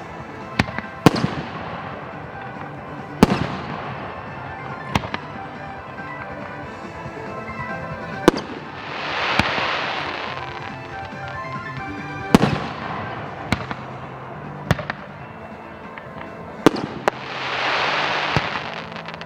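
Fireworks shells bursting with sharp bangs, singly and in quick pairs, every second or few, each with a fading tail. Twice a hissing swell rises and fades away. Background music plays underneath.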